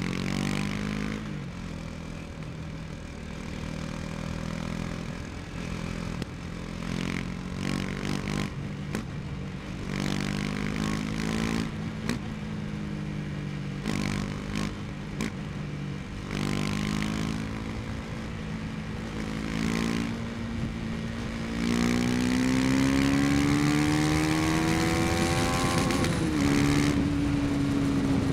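KTM 250 Duke's single-cylinder engine riding at low speed in traffic, its pitch rising and dropping through the gears. Near the end it climbs for several seconds, drops at an upshift, then holds steady. Scattered short knocks or clatter in the middle.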